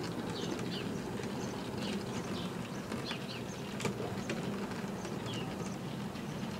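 OO gauge model tank locomotive and goods wagons running on the track: a steady motor hum with a few sharp clicks as the wheels cross rail joints and points. Short high chirps come and go throughout.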